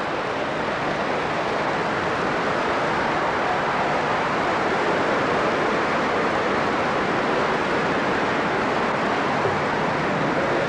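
Large theatre audience applauding steadily at the close of a live comedy monologue.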